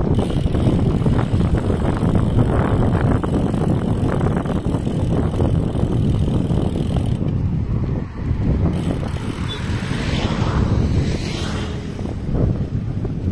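Loud, steady low rumble of wind buffeting the microphone.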